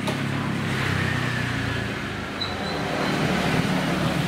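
A steady low engine hum, like a running motor vehicle, with a thin high tone briefly about two and a half seconds in.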